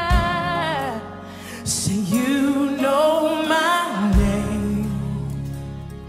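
Christian worship song: a singer holds long, wavering notes over instrumental backing.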